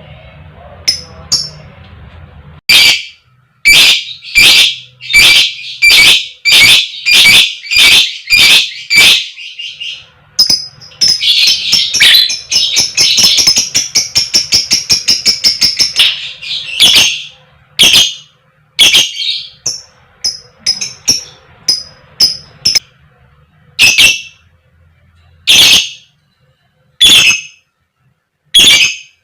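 A lovebird's loud, shrill 'koek koek' calls, repeated about twice a second. A fast, continuous rattling chatter (ngekek) runs for about five seconds near the middle, and the calls then come singly and further apart.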